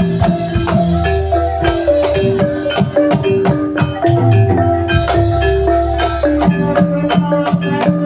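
Javanese gamelan music for an ebeg horse dance: a melody of mallet-struck, ringing notes over a quick, steady rhythm of struck percussion.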